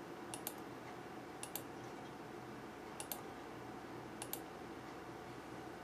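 Computer mouse button clicked four times, each click a quick double tick of press and release, over a faint steady hum.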